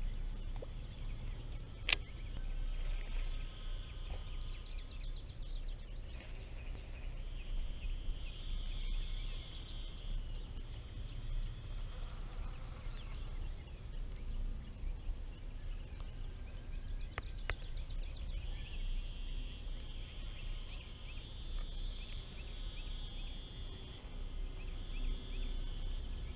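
Outdoor creek-side ambience: wind rumbling on an unshielded microphone, a steady high insect drone, and intermittent buzzy trilling calls that come and go. A single sharp click about two seconds in.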